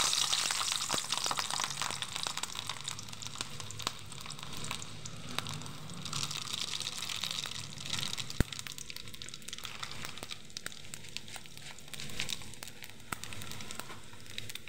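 Hot oil sizzling and crackling as seeds and garlic fry for a tempering (tadka). It is loudest just as they go in, then settles to a steady sizzle, with one sharp tick about eight seconds in.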